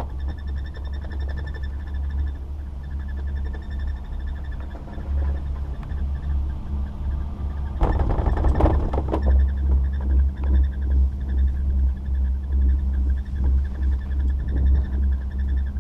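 Riding a Doppelmayr chairlift: a steady low rumble and wind on the microphone from the moving chair. About eight seconds in comes a short burst of clattering as the chair's grip rolls over a lift tower's sheaves, after which the rumble is louder and uneven.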